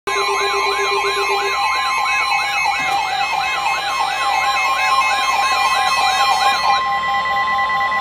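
Several weather radios sounding their alert tones at once for a severe thunderstorm warning. A fast warbling siren-like tone sweeps up and down about twice a second over rapid beeping and the steady Weather Radio warning tone. The warble stops near the end while the steady tone holds.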